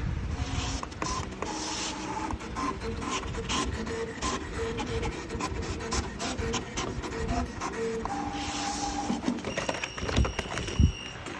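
SF-350MAX digital cutting and creasing machine running a job: its motors whine at shifting pitches as the heads move, with many short clicks and taps and one louder knock near the end.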